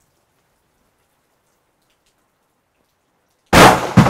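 Near silence, then about three and a half seconds in a single very loud .338 Edge rifle shot, followed about half a second later by a second sharp boom as the exploding target downrange detonates, the two blasts ringing out together.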